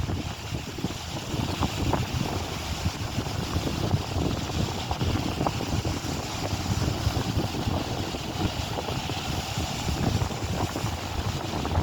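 Wind buffeting the microphone: a continuous low, gusty rumble with a faint hiss above it.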